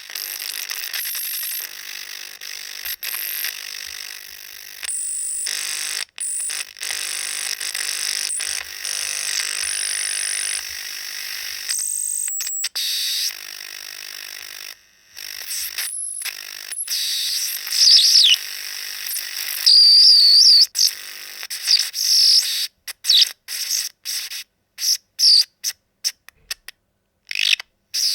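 Electronic interference sound effect: a hissing static with steady high tones through the first half, then choppy, stuttering bursts that cut in and out, with high chirping pitch sweeps.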